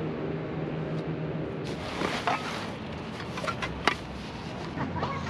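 Nylon fabric rustling and several sharp clicks as a folding camp chair is assembled and its stuff sack handled, the loudest click about four seconds in, over a steady low hum in the background.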